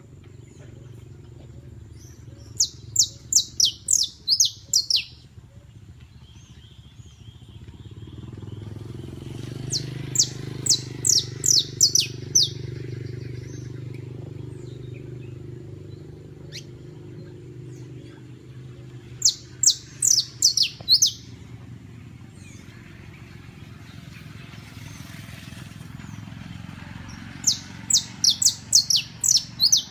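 Caged saffron finch (canario criollo) singing in four short bursts, each a quick run of sharp, high, downward-slurred chirps, spaced about eight seconds apart. A low steady rumble runs underneath.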